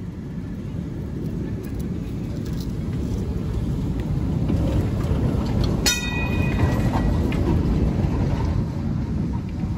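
Vintage tram 520 approaching and passing close by on its rails, a low rumble of wheels and motor that builds, is loudest about five to eight seconds in, then starts to fade. A single sharp metallic clang with a brief ring comes about six seconds in.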